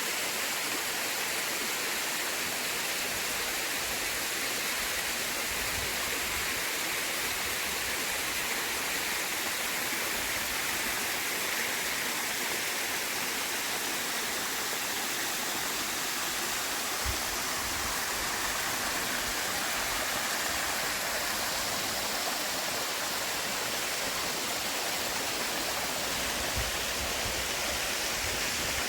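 Forest stream water rushing steadily, an even wash of flowing water. Two brief low thumps, one a little past the middle and one near the end.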